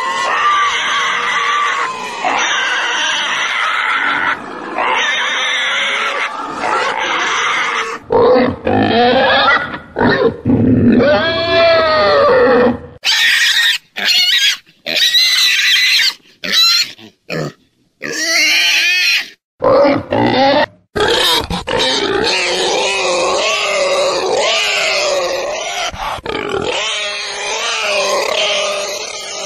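Domestic pig calls: a run of pitched calls that rise and fall in pitch. In the middle they come in short stretches broken by silent gaps.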